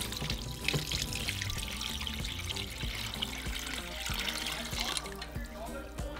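Water pouring steadily into a pot of browned chicken pieces, the water for making chicken stock; the pour stops about five seconds in.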